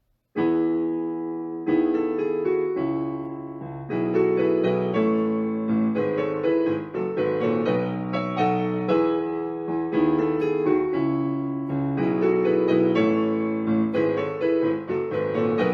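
Piano-sound keyboard playing the instrumental introduction to a song, a steady run of chords and melody notes starting about half a second in.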